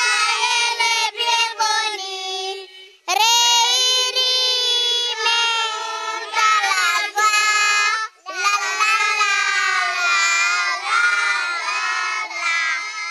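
A group of young children singing together into a handheld microphone, with no instruments, in phrases broken by short pauses about three and eight seconds in.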